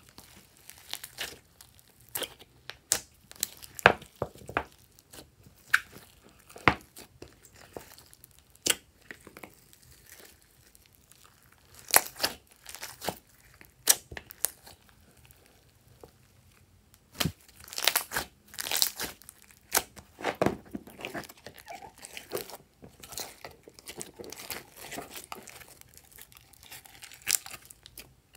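Fluffy slime mixed with foam beads and glitter being squeezed, pressed and pulled by hand, giving irregular sticky pops, crackles and tearing sounds, in dense flurries about a third of the way in and again past the middle.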